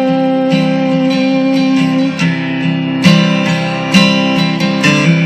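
Acoustic guitar strumming chords in a pop song demo, with a long held note over it that ends about two seconds in; the strongest strokes come about once a second after that.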